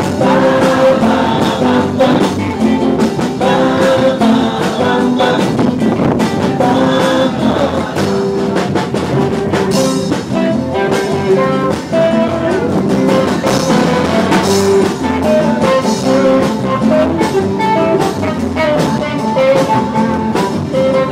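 Live band playing: a man singing with guitars.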